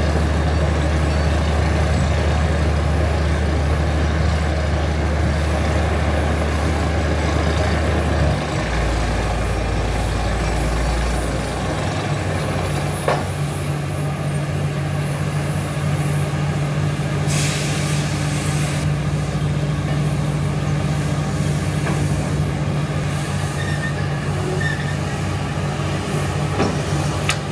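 Truck-mounted borewell drilling rig running steadily, its engine and air compressor drilling while compressed air blows rock dust out of the hole. The engine note drops about eight seconds in, and a short burst of hissing air comes a little past the middle.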